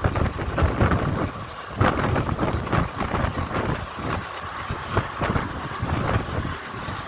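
Passenger train coaches running along the track, heard from an open doorway, with wind buffeting the microphone.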